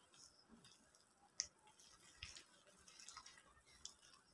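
Faint wet squelching and small clicks of thick gram-flour pakora batter being squeezed and mixed by hand in a glass bowl, with one sharper click about a second and a half in.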